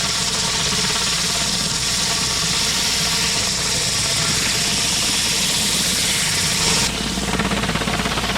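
Pressure washer running: a steady engine hum under a loud hiss of high-pressure water spray on concrete. About seven seconds in the spray hiss drops off, leaving the engine and pump running with a fast, even pulsing.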